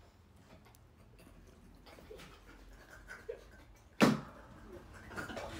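A quiet room with faint murmuring, broken about four seconds in by a single sharp crack, after which soft voices rise.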